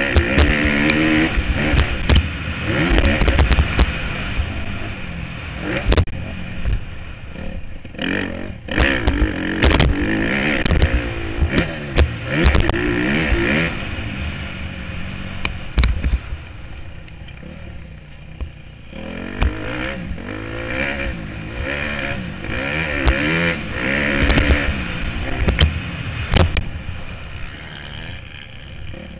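Motocross dirt bike engine revving up and down hard through the gears, heard from a helmet-mounted camera, with frequent sharp knocks. About halfway through it drops to a lower, quieter run for a few seconds, then revs up again.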